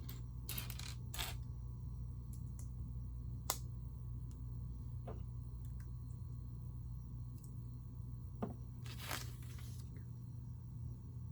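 Small plastic Lego pieces clicking and tapping as they are handled and pressed together, with short rustling bursts near the start and about nine seconds in, over a steady low hum.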